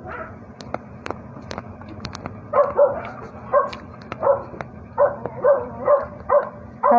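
A dog barking about eight times in a steady series, starting about two and a half seconds in, after a few sharp clicks.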